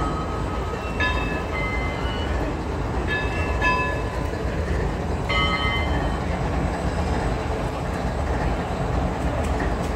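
Steady low rumble of idling Union Pacific locomotives, with a bell ringing in short strikes several times during the first half.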